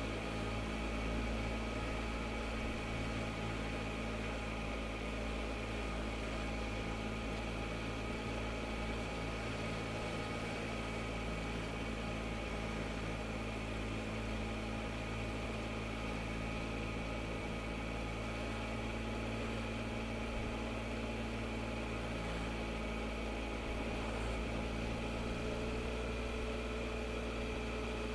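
Triumph Explorer motorcycle's three-cylinder engine running at steady revs while cruising, over low wind and road rumble. The engine note holds steady with no change in pitch or level.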